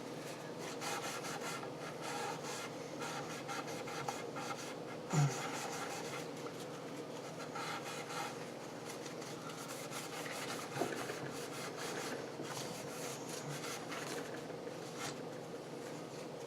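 Electric guitar frets being rubbed by hand with polish, a steady run of short scrubbing strokes. A single knock about five seconds in.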